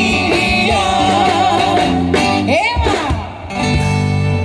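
Live band music led by guitars, with bass guitar and drum kit under a wavering held melody line; the music briefly thins about three seconds in, with a sweeping glide up and down in pitch, then resumes.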